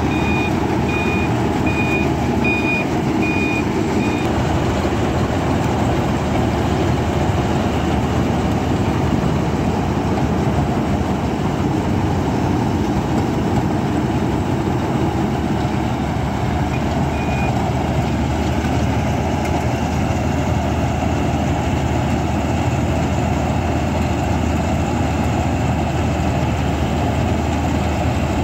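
Lovol RG108 crawler combine harvester running steadily while cutting rice, its engine and harvesting machinery making a constant drone. A high beep repeats about one and a half times a second for the first four seconds, and sounds briefly again about 17 seconds in.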